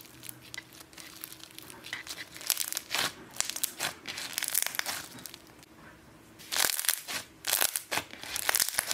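Thick blue slime mixed with small coloured beads being squeezed, stretched and pressed by hand, giving rapid crackling and popping, louder and denser in the last couple of seconds.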